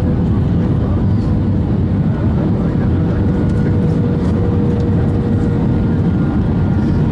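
Cabin noise inside an Airbus A320 on final approach with flaps extended: a steady rush of engine and airflow noise, with a faint steady whine.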